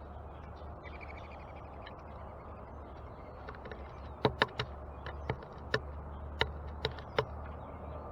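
A bird tapping and pecking at the feeder: about eight sharp, irregular taps over three seconds, from about four seconds in, over a steady outdoor background. A short, quick bird call comes about a second in.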